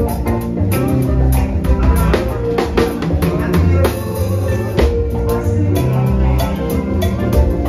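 Live band playing an upbeat song: acoustic drum kit with toms and cymbals driving the beat over a deep electric bass line.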